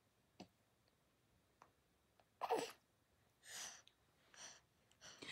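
A five-month-old baby's short vocal burst with a falling pitch about halfway through, followed by a few soft breathy puffs, after some faint mouth clicks from chewing a teether.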